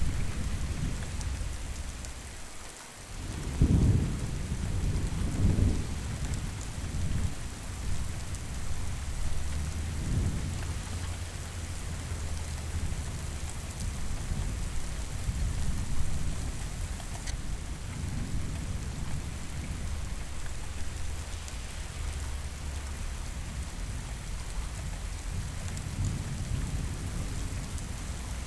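Steady rain falling, with low rolls of thunder. The sound briefly fades about three seconds in, then comes back with the strongest rumble, and further rolls follow around ten and sixteen seconds in.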